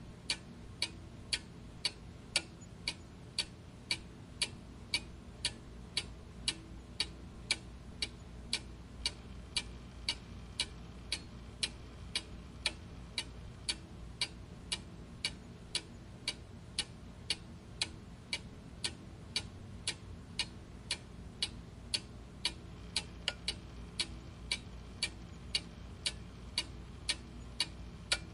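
Clock ticking steadily, a little under two ticks a second, over a faint low steady hum.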